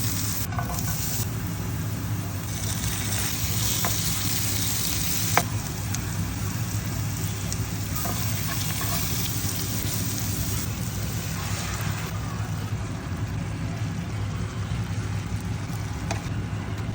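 Food sizzling as it fries in a pan, with stirring, and a sharp utensil tap about five seconds in, over a steady low hum.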